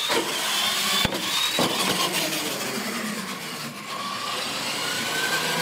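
Radio-controlled retro monster truck at full throttle: motor and gears whining as the pitch rises and falls, with tyres rolling over the floor and mats and a knock about a second in.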